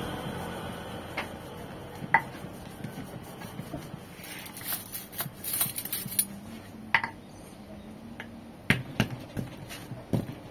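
Stone pestle grinding rujak sauce paste in a stone mortar (cobek and ulekan), scraping with scattered sharp knocks of stone on stone. A passing vehicle fades out in the first couple of seconds.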